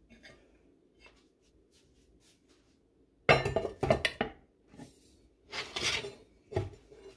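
Cast-iron pot and lid clattering as they are handled: faint clicks, then a loud quick run of knocks about three seconds in, a scrape near six seconds and one last knock near the end.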